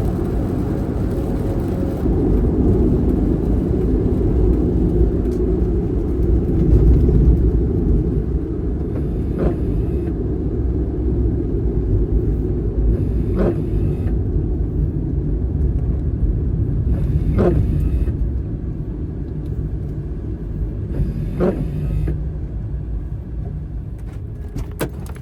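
Kei van driving, with a steady low rumble of engine and road noise. From about halfway through, a short sweep-like sound comes about every four seconds.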